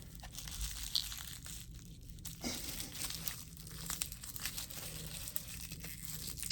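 Packing tape and bubble wrap being pulled, torn and crinkled by hand to open a heavily taped package, with scattered small crackles and a few sharper snaps as bubbles pop.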